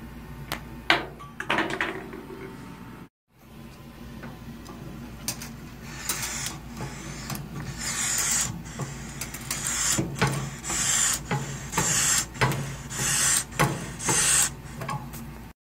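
Hand-worked balloon pump on a coin-op clown balloon vending machine, pumped over and over to blow up a balloon: repeated strokes of rushing air with mechanical rubbing, roughly two a second. A few sharp clacks come about a second in.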